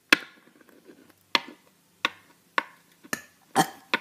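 A small plastic Littlest Pet Shop figure tapped down on a hard surface again and again as it is hopped along, making about seven sharp clicks at uneven intervals, roughly two a second.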